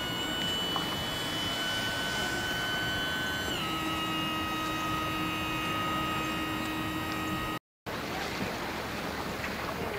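A motor's steady whine that drops in pitch about a third of the way in and holds at the lower pitch. After a brief cut near the end comes a steady rushing noise.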